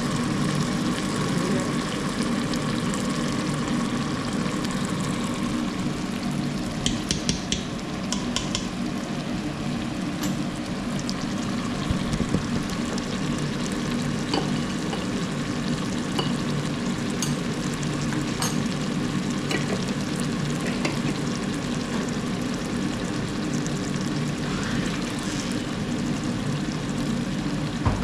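Tomato masala sizzling and frying in oil in the open inner pot of an electric pressure cooker, with a steady low drone underneath. A few sharp metal clinks from the ladle against the pot come through the middle.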